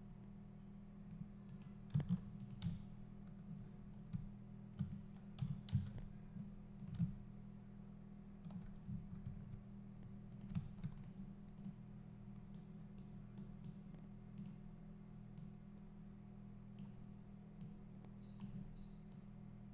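Computer keyboard keystrokes and mouse clicks, irregular and in small clusters, over a steady low hum.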